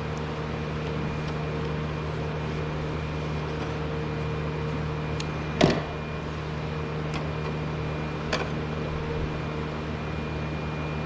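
A steady machine hum with a few sharp clicks and knocks, the loudest a little past halfway, as the plastic oil filter housing cap is worked loose with a hand tool and unscrewed.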